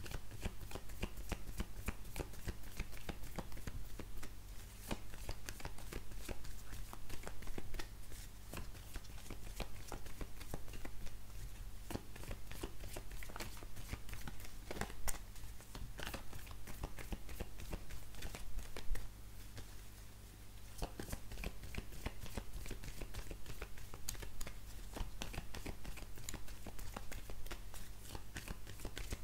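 Hands shuffling a deck of oracle cards: a steady run of soft, rapid card clicks and slides, easing off briefly about twenty seconds in.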